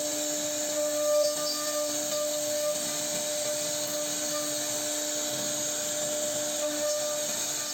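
CNC router spindle running steadily while cutting wood: a constant high whine over a hissing cutting noise.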